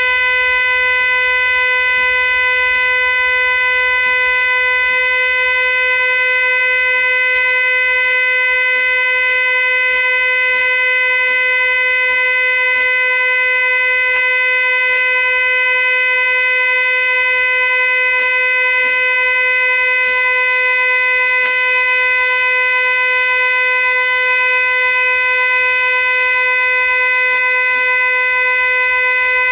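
A reed pipe of the Ruffatti organ's chamade trumpet stop sounding one steady held note, bright with overtones, while it is being tuned. Faint clicks sound over it now and then.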